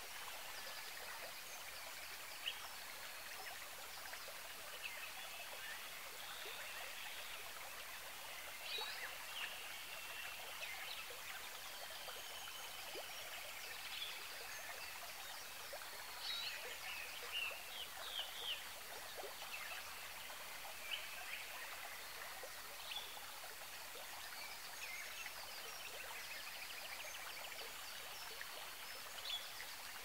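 Faint, steady rush of running water, like a stream, with scattered short, high bird chirps, busiest around the middle.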